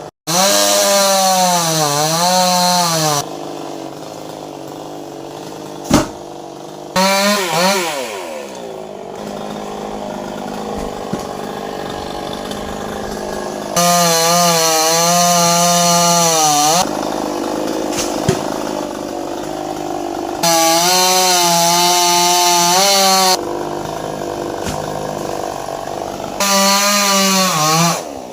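Chainsaw cutting into a coconut palm trunk. It revs up in five bursts of two to three seconds each, its pitch sagging and recovering as it bites into the wood, and drops back to a lower idle between them. There is one sharp knock about six seconds in.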